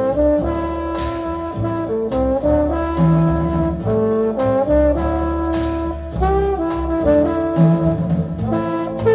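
Big-band jazz with a lead trombone and brass playing held notes over a bass line, with a cymbal crash about a second in and another past the middle, played from a mono vinyl LP on a Rek-O-Kut K33H turntable with a GE VR II cartridge.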